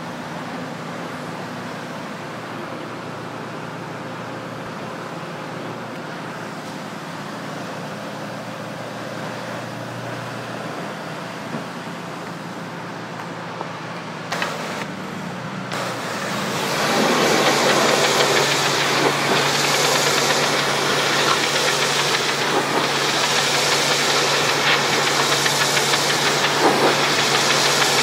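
Gas pressure washer engine running steadily; about halfway through, a loud hissing spray starts and continues, the high-pressure water jet in use.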